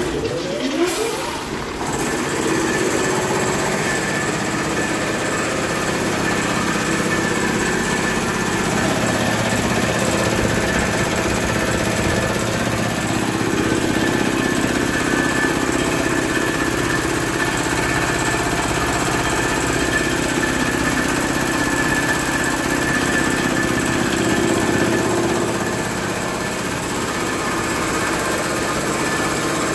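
Rol-Air 10 HP reciprocating air compressor with a Dresser Series 550A pump head and three-phase electric motor, switched on and coming up to speed with a brief rising whine, then running steadily.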